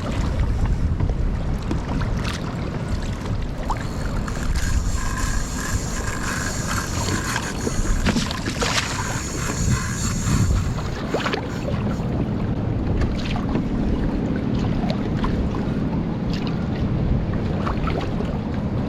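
Wind buffeting the microphone over water slapping and splashing against a kayak in choppy sea, with scattered sharp splashes and knocks.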